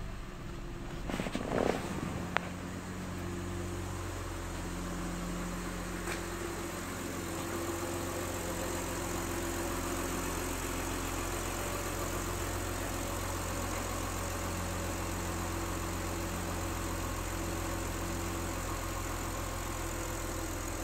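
2005 Saturn Vue's 3.5-litre V6 idling steadily at about 1,000 rpm. A few knocks and a short clatter come about one to two and a half seconds in.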